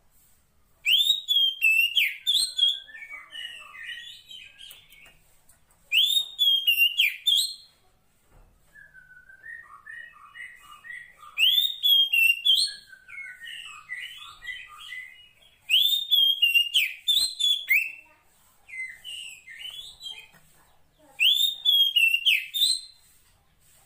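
Female Oriental magpie-robin (kacer poci) calling for a male: phrases of loud rising whistled notes, each trailing off into lower, quieter chattering notes. The phrases repeat five times, separated by short pauses.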